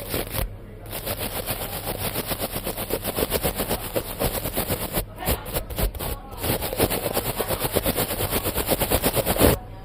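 Fast, even scratching strokes rubbed against a microphone, about five a second, broken by short pauses near the start, around the middle and just before the end.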